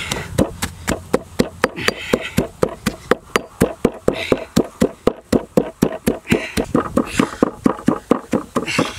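Stone pestle pounding red chilies and coarse salt in a stone mortar: a steady run of knocks, about four to five strokes a second.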